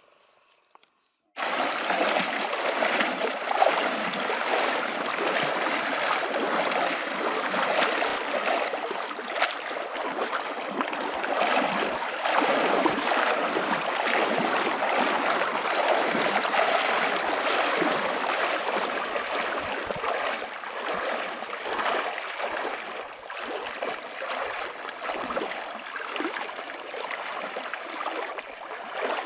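Several people wading knee-deep up a shallow stream: continuous sloshing and splashing as legs push through the water. It starts suddenly about a second and a half in, and a steady high insect trill runs over it.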